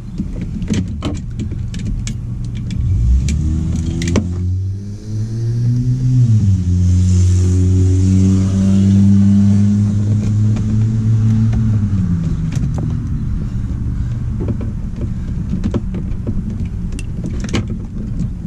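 A motor vehicle's engine running for several seconds, its pitch rising, holding steady and then dropping away. Clicks and rustles of wiring and cable being pulled loose under a car's dashboard run through it.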